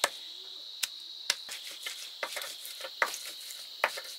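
Stone roller knocking and grinding on a flat stone slab (Nepali silauto) as garlic and ginger are crushed into paste: irregular sharp stone-on-stone clicks, a few each second.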